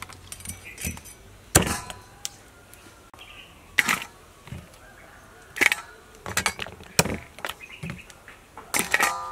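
About five sharp knocks, a second or two apart, some with a brief metallic ring, as cooked mud crabs are chopped with a cleaver on a wooden board and the pieces are handled into a steel bowl.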